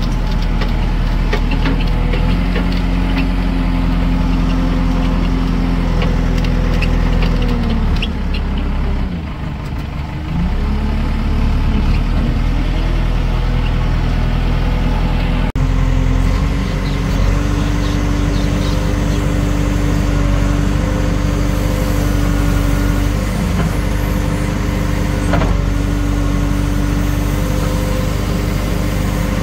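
Tractor diesel engine running steadily. About eight seconds in it drops in revs and then picks back up over a couple of seconds.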